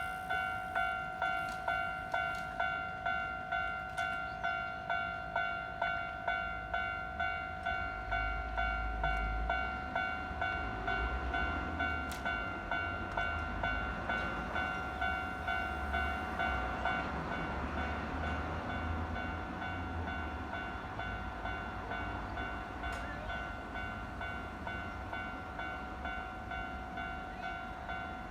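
Japanese level-crossing alarm ringing a steady two-tone clang about twice a second. Partway through, a Nankai Koya Line train passes over the crossing with a low rumble that lasts roughly twelve seconds, then fades while the alarm keeps ringing.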